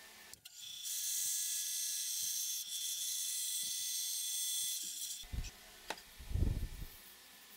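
Bandsaw cutting plywood: a steady high hiss that starts and stops abruptly, followed near the end by a few low thumps of wood pieces handled on a workbench.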